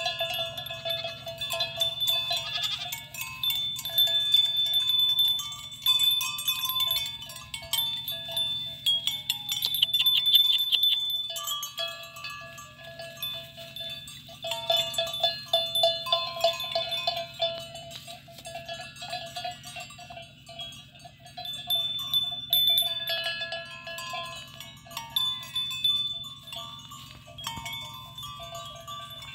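A herd of goats crowding around, neck bells clinking and ringing as they move, with occasional goat bleats.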